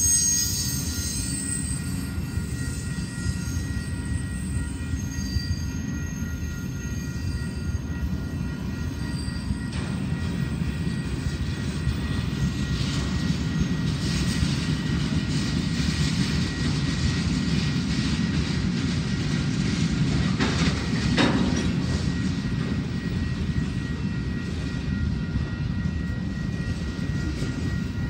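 Freight cars of a long mixed train rolling past on the rails: a steady low rumble with a faint high wheel tone, and one short sharper clank about three quarters of the way through.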